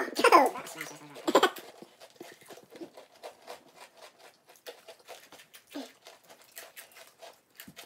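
Two short wordless vocal sounds in the first second and a half, then faint irregular clicks and rustles of people chewing and handling food, wrappers and paper plates.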